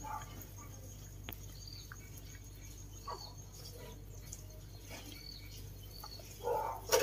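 A few faint, short, high chirps spaced a second or so apart over a low steady hum, with a single sharp click about a second in and a louder, rough animal call near the end.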